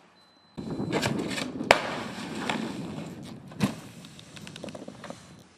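Snowboard sliding and scraping through snow, starting abruptly about half a second in and fading away, with two sharp knocks along the way.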